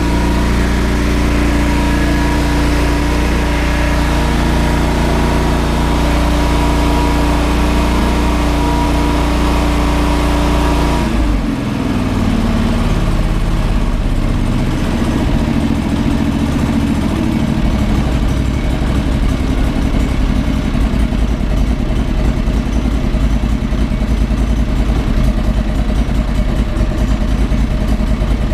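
John Deere 425 lawn tractor's Kawasaki liquid-cooled V-twin engine running on fresh oil to fill the new oil filter. It runs steadily at a higher speed, then about eleven seconds in the engine speed drops and it runs on slower with a more distinct beat. It runs with no missing or surging, the sign that the vacuum lines and air cleaner went back together right.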